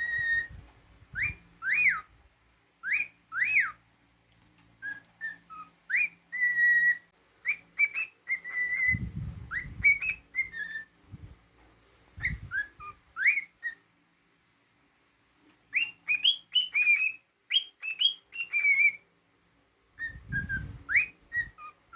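Pet cockatiel whistling a tune: phrases of clear whistled notes, quick up-and-down sweeps and short held tones, broken by brief pauses, with a few dull low bumps.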